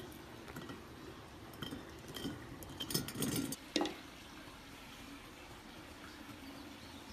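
A few faint clinks and knocks, bunched about two to four seconds in, over low background noise.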